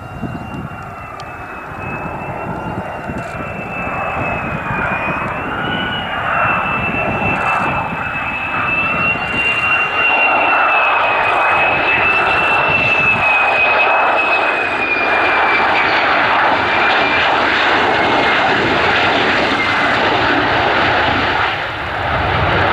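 Lockheed Martin F-35A Lightning II's single F135 turbofan on landing approach: a steady high whine over jet noise that grows louder as the jet comes in, then holds loud. The whine drops slightly in pitch near the end.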